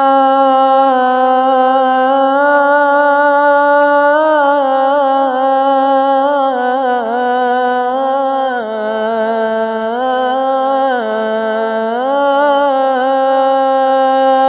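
Imsak siren tune: one continuous pitched tone that glides slowly down and back up between a few pitches, with some wavering. It signals imsak, the pre-dawn cutoff for eating before the Ramadan fast.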